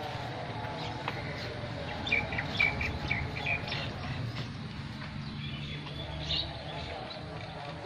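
Small birds chirping: a quick run of short chirps about two seconds in, and a single higher call a little after six seconds, over a steady low hum in the background.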